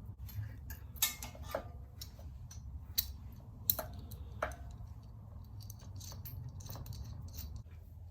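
Scattered sharp clicks and light metallic taps from hand work with small tools and parts, a handful over several seconds, over a low steady hum.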